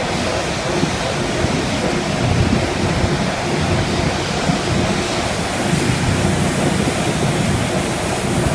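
Water gushing from a large hose through steel grating into a portable clarifier tank and spilling down the tank's side: a loud, steady rushing and splashing. A faint steady hum lies underneath.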